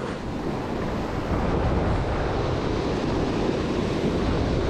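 Steady wind noise on the microphone over the wash of surf at the water's edge.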